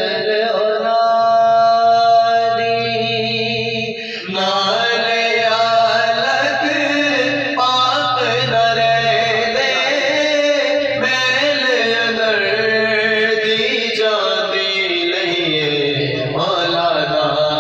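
Men's voices chanting a devotional recitation as a melody, with a long held note over the first few seconds before the line moves on.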